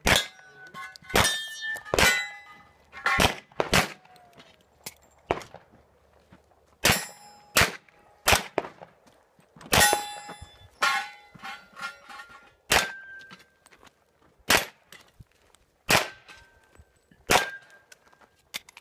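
Pistol shots fired one at a time, about a second apart, at steel targets: around fifteen sharp cracks, most followed by the brief ringing clang of a hit steel plate.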